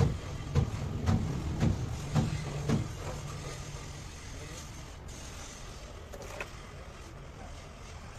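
A series of sharp knocks, about two a second, during alternator repair work, then a steady low hum with one more click near the end.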